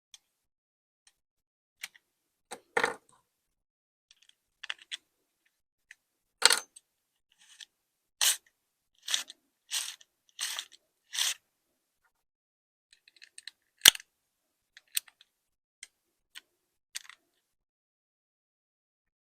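A series of short, separate scrapes and clicks with silence between them, five in a row about a second apart midway, then a sharp click.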